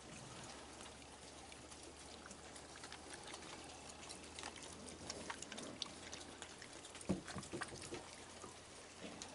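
Steady rain dripping and trickling, with scattered small taps and one louder knock about seven seconds in.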